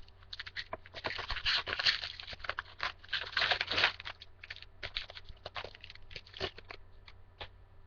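Crinkling and tearing of a foil trading-card pack wrapper, densest about a second to four seconds in, followed by scattered light clicks of cards being handled.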